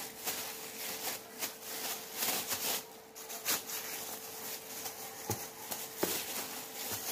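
Thin plastic disposable gloves crinkling and rustling in irregular crackles as hands knead and press a lump of chocolate cookie dough, with soft pats of the dough, over a faint steady hum.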